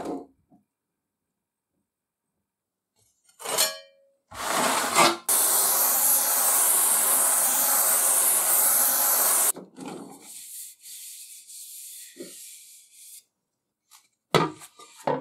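A Beverly shear snips through the copper sheet at the start, then a gas torch hisses loudly and steadily for about four seconds while annealing the copper disc to soften it for spinning, stops abruptly, and a fainter hiss follows. A couple of sharp knocks come near the end.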